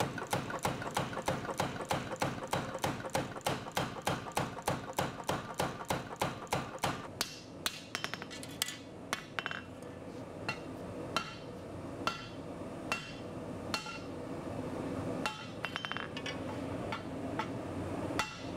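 A power hammer strikes a glowing steel chopper blade held in tongs, forging it in rapid, even blows for about the first seven seconds. Then a hand hammer strikes the hot blade on an anvil in slower, uneven single blows, truing up the blade's profile.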